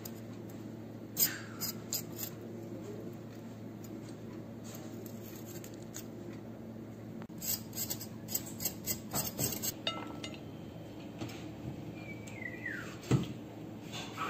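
Serrated knife clinking and tapping against a china plate: a few clicks about a second in, then a quick run of about eight clicks around eight to ten seconds in, and a single hard click near the end, over a steady low hum.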